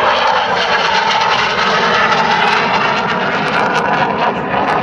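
Fixed-wing aircraft flying by with steady engine noise.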